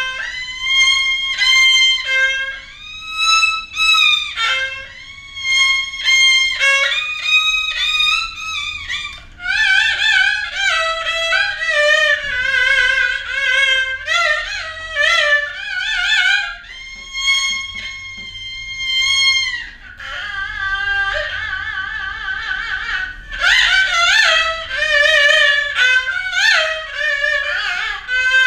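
Haegeum, the Korean two-string fiddle, playing the slow jinyangjo movement of a sanjo. Long bowed notes with wide vibrato and sliding pitch, in phrases broken by short pauses.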